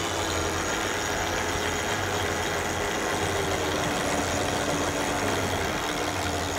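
Steady engine drone, a low hum with a fainter tone above it that sinks slightly in pitch about halfway through.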